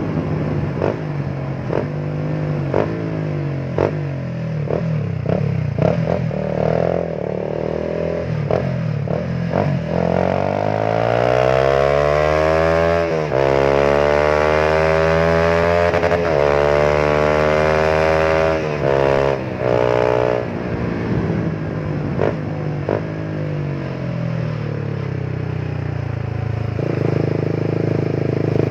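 Honda RS150R's 150 cc single-cylinder DOHC engine running through a CJ Ipoh 28 mm aftermarket exhaust, revved up and held high for several seconds, then falling back to a steady idle. Repeated sharp cracks come from the exhaust throughout.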